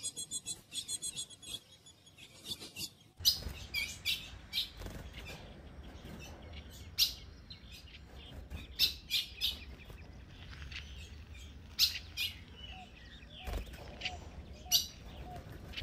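Female ultramarine grosbeak (azulão) giving sharp, high chip calls, scattered roughly every second, after a fast run of high ticking notes in the first three seconds. A low rumble sits under the calls from about three seconds in.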